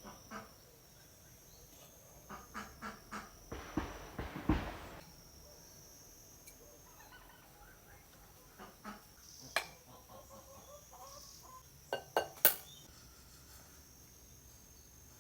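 Farmyard fowl calling: a quick run of short calls about two and a half seconds in, over a steady high insect drone. A rustling burst follows, and a few sharp knocks near the end are the loudest sounds.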